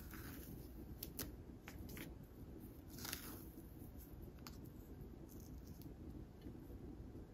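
Faint, sparse clicks and taps with one short scrape about three seconds in: kitchen utensils working the ingredients during food preparation.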